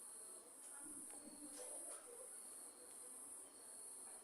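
Crickets trilling at night: a faint, continuous high-pitched chorus that swells and dips slightly.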